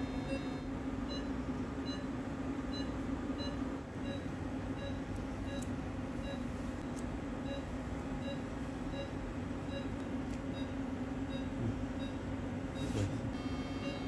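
Faint electronic beeps from medical equipment, repeating evenly a bit under two times a second, over a steady low hum. Near the end a steady higher tone joins in.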